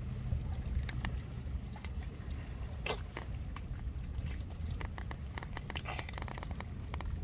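Stray cats crunching dry kibble: irregular sharp crunches, busiest about three seconds in and again near six seconds, over a steady low rumble of wind or sea.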